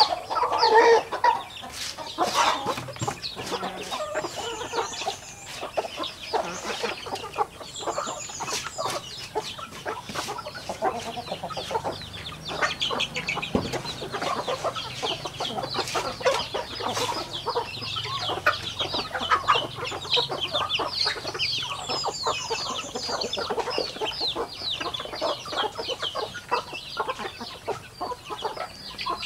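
A large flock of chickens, roosters, hens and chicks, clucking and chirping busily while they feed, over a steady patter of sharp taps as they peck the ground.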